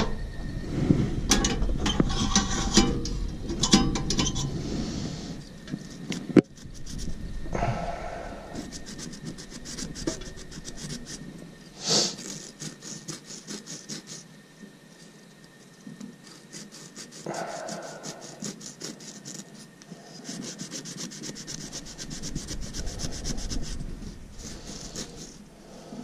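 Furnace flame sensor rod being scrubbed with an abrasive, in irregular rasping strokes, with a few sharp clicks of handling. This is the routine cleaning of the sensor rod on a furnace that had been dropping out.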